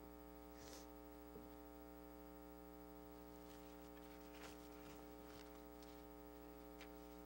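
Near silence: a steady electrical mains hum on the sound system, with a few faint, brief rustles.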